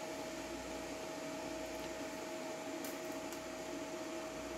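Steady background hum and hiss with one constant thin tone, and two faint ticks about three seconds in.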